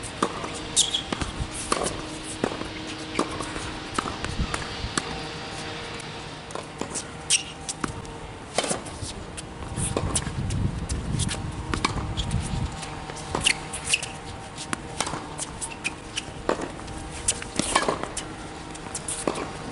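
Tennis racket striking the ball on forehands and the ball bouncing on a hard court: sharp pops at irregular intervals, one every second or two, with footsteps on the court between shots.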